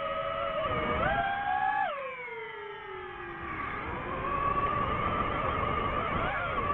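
DJI FPV drone's propellers whining with one steady pitch. The pitch steps up about a second in, drops steeply a second later and slowly climbs back as the motor speed changes.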